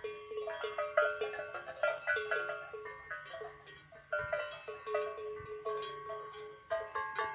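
Several cowbells on grazing livestock clanking irregularly, with overlapping ringing strokes at several pitches, a few every second.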